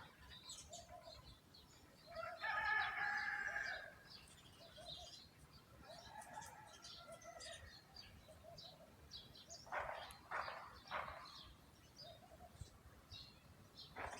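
Small birds chirping over and over, with a rooster crowing once about two seconds in, the loudest sound. A fainter drawn-out call follows around six seconds, and three short calls come near ten seconds.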